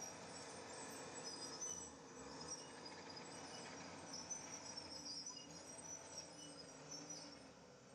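A steady chorus of insects chirping in high-pitched trills, over a faint low background rumble.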